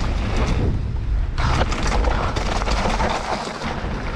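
Wind buffeting the microphone over the rush of a mountain bike's tyres on a dirt trail, with knocks and rattles as the bike rides over bumps.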